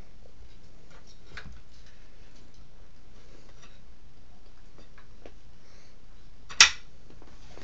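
A cat's paws and claws tapping lightly on a wooden chair as it climbs, with one sharp, loud knock about six and a half seconds in.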